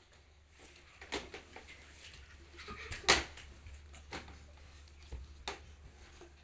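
Scattered light knocks and bumps of toddlers handling a plastic stool and a plastic tube on a tiled floor, about five in all, the loudest about three seconds in.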